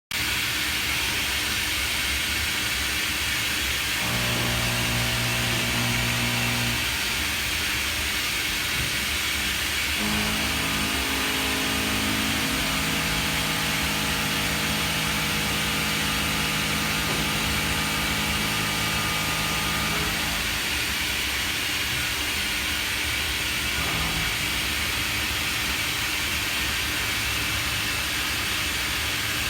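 Romi D1000 vertical machining centre running a cut: a steady hiss, with steady machine tones that come in twice for a few seconds each.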